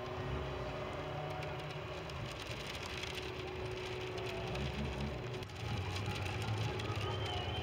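Several Ministox race cars' small engines running at low speed, a steady low rumble, with a brief dip about five and a half seconds in.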